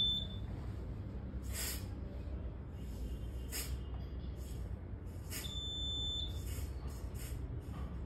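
Short hisses of smoke-detector test aerosol sprayed from a tester cup onto a smoke detector, four or five brief bursts. A single high-pitched beep sounds about five and a half seconds in.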